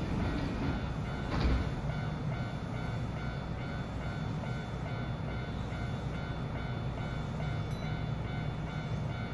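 Level-crossing warning bell ringing steadily, with several pitched tones, over the low rumble of an electric train standing at the platform. A short knock sounds about a second and a half in.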